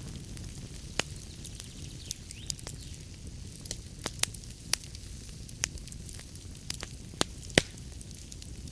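Wood fire burning in a fireplace: a steady low rumble of flames with irregular sharp crackles and pops, the loudest pop near the end.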